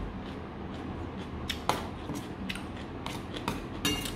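Metal spoon scraping and clinking against a stainless steel bowl while scooping food, in a run of light clicks. A sharp clink comes about one and a half seconds in, and a short ringing clink near the end.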